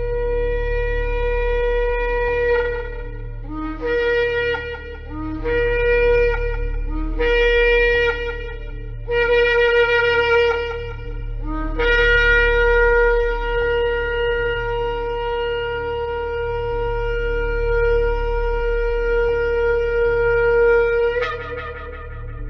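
Shofar blowing: one long blast, then four shorter blasts that each start on a lower note and jump up, then a very long held blast of about nine seconds that ends with a sharp upward leap in pitch.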